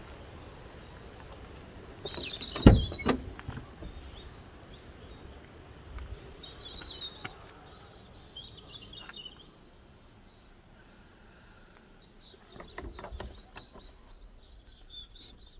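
Small birds chirping in short bursts of high notes, on and off. A loud thump with a few knocks comes about three seconds in, and a cluster of softer knocks follows near the end.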